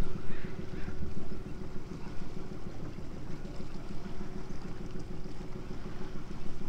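Small boat's outboard motor running at low speed, a steady hum over a low rumble.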